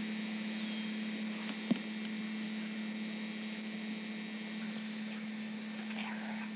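Steady low electrical hum on the recording, with one sharp click about a second and a half in.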